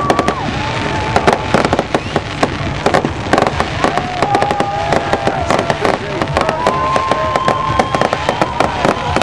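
Fireworks going off in rapid succession, a dense run of sharp bangs and crackles with no pause, with voices from the crowd.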